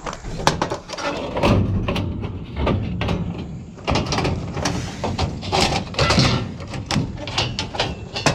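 Scrap metal being handled and loaded into a pickup bed: irregular clanks, knocks and rattles, over a steady low hum.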